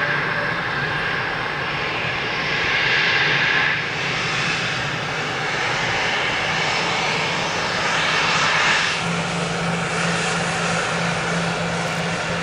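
Business jet turbofan engines at taxi power, a steady whine over a rush of air. The sound changes abruptly about 4 and 9 seconds in as a different jet is heard, ending with a low steady hum.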